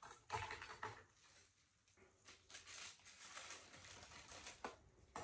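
Faint rustling and crinkling of a plastic bag as powdered yellow cake mix is shaken out of it into a plastic jug, with a few light clicks.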